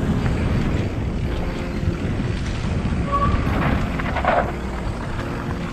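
Mountain bike rolling fast down a dry dirt trail, picked up by a GoPro Hero 7 mic under a homemade windsock: a steady low rumble of wind and tyre noise, with occasional short knocks and rattles from the bike.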